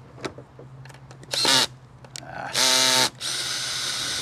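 Cordless drill/driver backing out the screws that hold a plastic RV fender shroud, running in bursts: a short whir that rises in pitch about a second and a half in, a louder whir near the three-second mark, then a steady run of about a second at the end.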